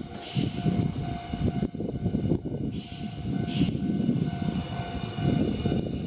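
Nankai Koya Line electric train running through the station: a steady, heavy rumble of wheels and bogies on the rails, with a few brief high-pitched bursts over it.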